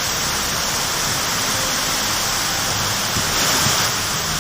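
Heavy downpour with strong wind: a loud, steady hiss of rain that swells slightly a little past the middle.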